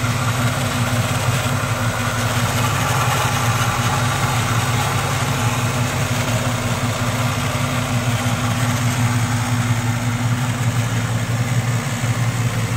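Chevrolet El Camino engine idling steadily.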